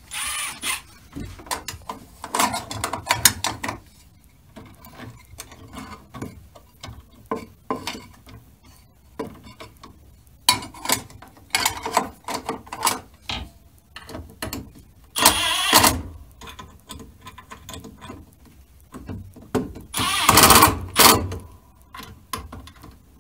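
Milwaukee Fuel cordless impact driver in several short runs, driving the screws that fasten the cover onto a metal junction box, with light clicks and handling of the metal box between runs.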